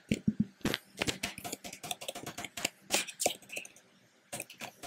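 Computer keyboard typing: a quick run of key clicks, pausing briefly near the end.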